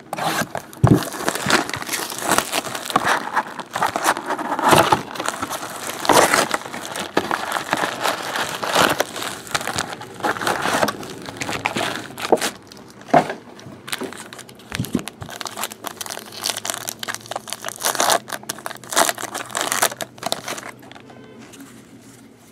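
Plastic shrink wrap torn off a sealed box of baseball cards, then a card pack's wrapper ripped open: loud, irregular crinkling and crackling that dies down near the end.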